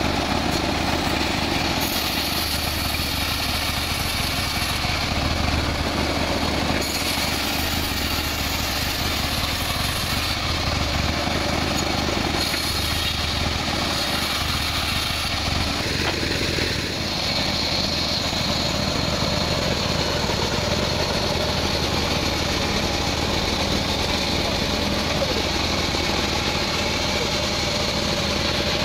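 Band sawmill running steadily, its blade sawing a teak log into boards.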